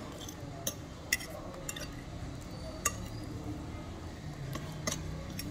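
A few sharp, light clinks of cutlery against a plate, about five spread through the few seconds, over a steady low background hum.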